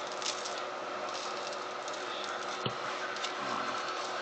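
Faint clicks and taps of a spice container being handled while a raw Cornish hen is seasoned by hand, over a steady background hiss.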